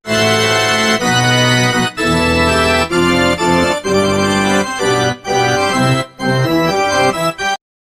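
A short musical phrase of sustained organ-like keyboard chords, changing every half second to two seconds, which cuts off abruptly shortly before the end.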